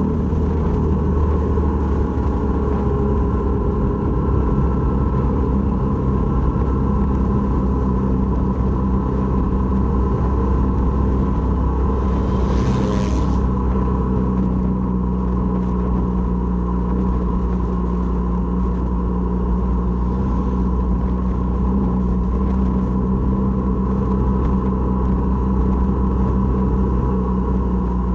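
Honda MSX125's single-cylinder four-stroke engine running at a steady, unchanging pace over a deep low rumble. A brief hiss comes about halfway through.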